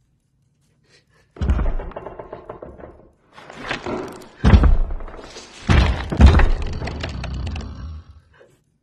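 Film sound effects of heavy crashing and breaking, about five hard hits with long ringing tails starting about a second and a half in, as the creature smashes its way around.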